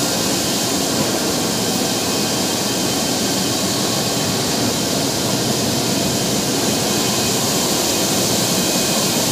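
Tea factory machinery running steadily with a constant loud din, including toothed CTC rollers cutting fresh green tea leaves.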